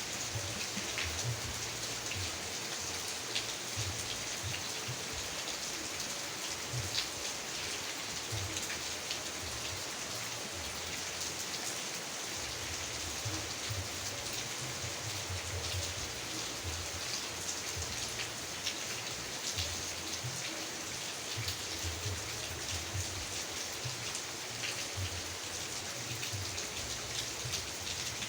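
Steady heavy rain falling, a constant hiss with many individual drops ticking and pattering on surfaces.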